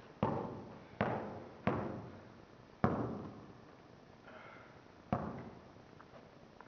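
Basketball bouncing on a hard floor in a large echoing hall: three quick bounces in the first two seconds, then single bounces near three seconds and after five seconds, each ringing on.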